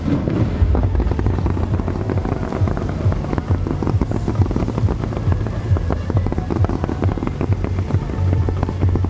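Underwater fireworks erupting from a pond's surface in fan-shaped sprays, giving rapid crackling pops over a steady low rumble.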